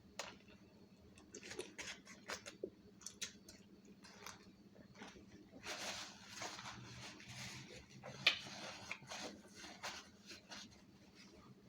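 Close-up chewing of a bite of shrimp taco: an irregular run of soft wet mouth clicks and crunches, with a denser, noisier stretch of chewing past the middle.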